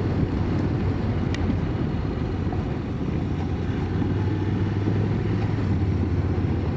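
Motorcycle engine running steadily on the move, with a steady low drone over rushing road and wind noise.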